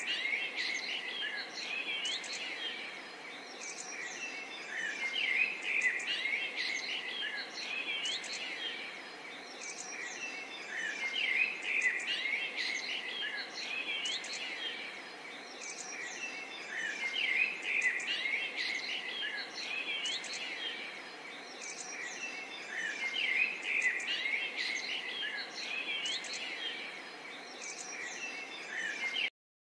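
Small birds chirping and singing, many short rising and falling calls over a faint steady hiss; the chorus swells and fades every few seconds and cuts off just before the end.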